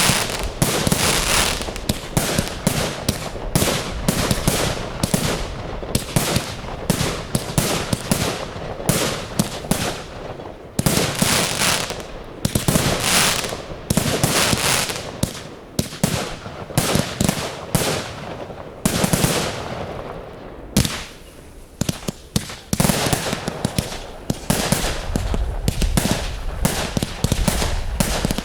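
Aerial fireworks display going off continuously: rapid, overlapping shell bursts and crackling reports with echoing booms, easing briefly about two-thirds of the way through before building again.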